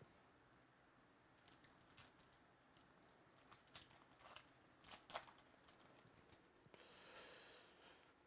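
Faint crinkling and tearing of a foil trading-card pack wrapper being ripped open by hand, with sharp crackles in the middle, then a soft rustle near the end as the stack of cards slides out.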